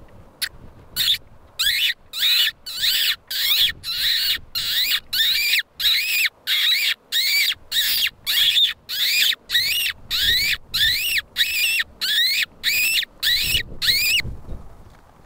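Hunter squeaking against the back of his hand, a mouth call that imitates a small animal in distress to lure a fox. It is a steady run of short, high squeaks at about two a second, each one bending in pitch, stopping about a second before the end.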